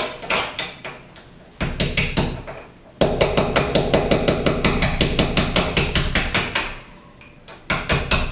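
Ball peen hammer tapping a small chisel into the mortar joint around a glass block: a few scattered light taps, then a fast run of taps, roughly eight a second, for about four seconds, then a couple more near the end. The mortar is being chipped out to give the block room to expand when it is broken.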